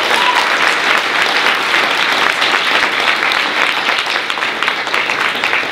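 Audience applauding: a loud, dense patter of many hands clapping.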